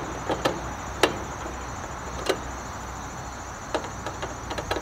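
A screwdriver and small self-tapping screws clicking and ticking against a sheet-metal grease shield as the screws are started by hand. There are a handful of short, sharp clicks at uneven intervals.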